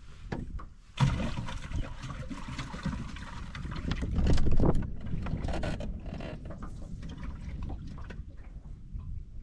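Boat moving across the water: a rushing noise of wind and water starts suddenly about a second in, heaviest in the low end and loudest about four seconds in.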